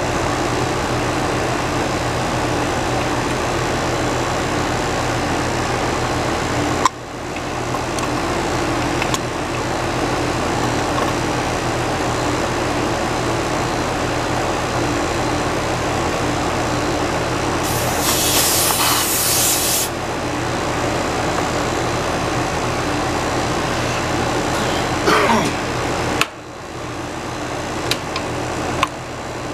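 Steady mechanical hum of running air-conditioning equipment, dipping briefly twice. About two-thirds of the way through comes a short hiss, and a few light metallic clicks follow, as a brass gauge fitting is threaded onto the unit's service valve.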